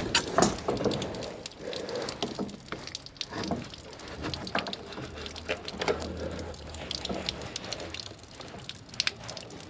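Irregular light clicks and metallic rattles of a thin steel strap brace being handled and worked against a timber wall frame.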